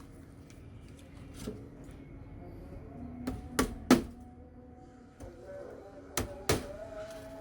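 Hammer knocking on wood: a few separate sharp taps, a quick run of three about three and a half seconds in with the last the loudest, and two more near the end.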